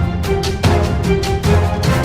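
Theme music with a steady drumbeat and held melody notes.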